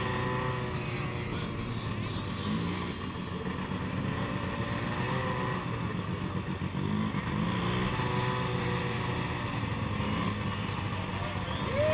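Snowmobile engine running steadily at low speed, a continuous low drone heard from close by on the machine.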